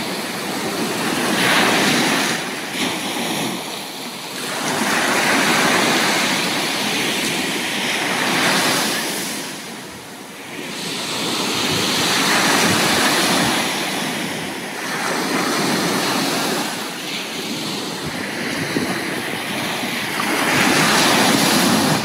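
Small waves breaking and washing up a sandy beach. The surf swells and falls back every few seconds.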